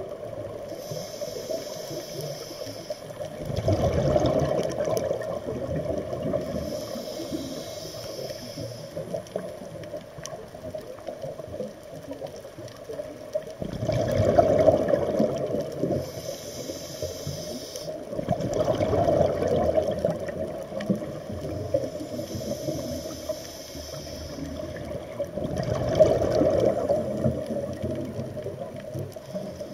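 Scuba diver breathing through a regulator underwater. A thin hiss on each inhale alternates with four louder rushes of exhaled bubbles.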